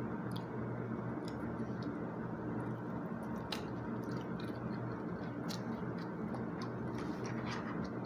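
A person chewing and biting food, with scattered small clicks, over a steady background hum.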